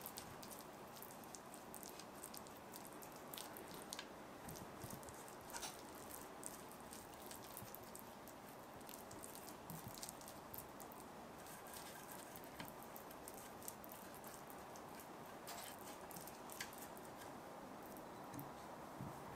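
Silicone pastry brush spreading butter inside the cups of a metal madeleine pan: quiet, soft wet brushing with scattered light clicks of the brush against the tin.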